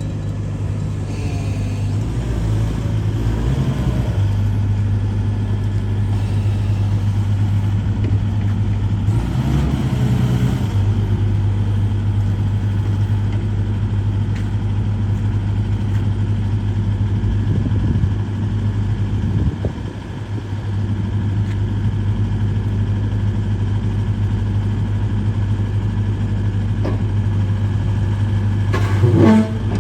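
Hitachi ZX140W-3 wheeled excavator's diesel engine running at a steady idle. Its sound briefly gets busier a few times and swells sharply just before the end.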